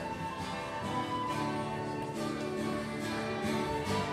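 A small acoustic folk consort playing an Irish-style tune: a guitar picking along under a melody line of held and moving notes.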